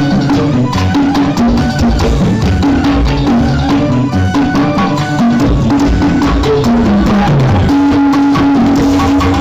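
Music with drums and heavy bass played loud through a car's sound system.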